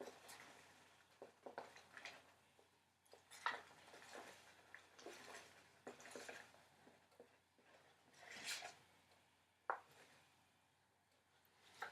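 Soft scrapes, light taps and brief rustling swishes of a measuring cup scooping flour and pouring it into a bowl, the loudest swishes about three and a half and eight and a half seconds in.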